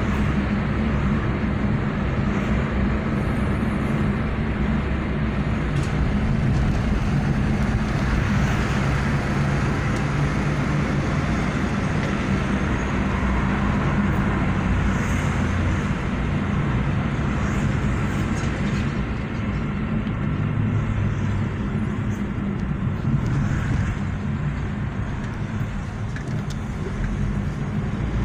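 Car driving at steady speed, heard from inside the cabin: a steady low engine hum over even tyre and road noise.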